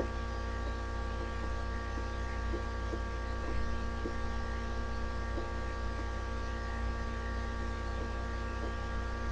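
Steady electrical mains hum with a buzzy stack of tones, with a few faint soft ticks now and then.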